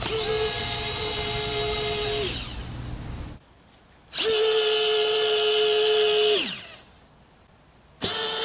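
Servo driving the morphing winglet's worm-and-worm-gear mechanism, swinging the winglet between open and closed. It whines in runs of about two seconds, each dropping in pitch as it stops: twice, with a third run starting near the end.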